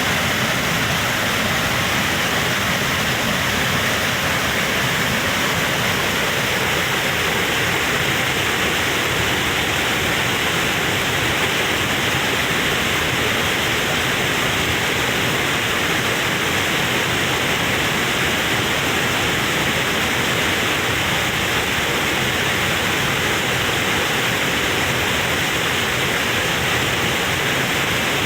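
Waterfall: falling water making a loud, steady rush.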